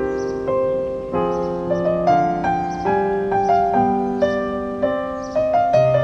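Background piano music: a melody of single struck notes and chords, one after another.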